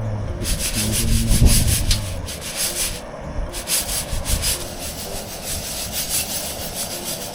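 Coffee beans rustling and rasping in a rhythmic scraping, several strokes a second, loudest about a second and a half in.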